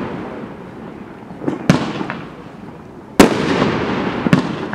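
Mad Ox "Playin with Fire" consumer fireworks cake firing: sharp bangs about a second and a half in and again about three seconds in, with a smaller one a second later. Each bang is followed by a noisy trail that slowly fades.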